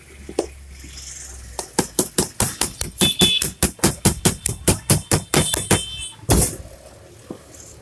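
Rapid hammer taps on metal, about four or five a second with a slight ring, knocking the shaft out of a semi-automatic washing machine's gearbox. A short burst of noise breaks in about six seconds in.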